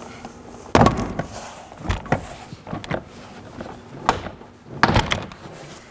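Plastic door-panel retaining clips snapping loose as the inner door trim panel is pulled off the door: a handful of sharp snaps and knocks, the loudest about a second in and again near the end.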